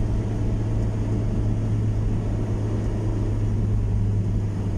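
Car interior noise while driving: a steady low hum of the engine and tyres on the road, heard from inside the cabin.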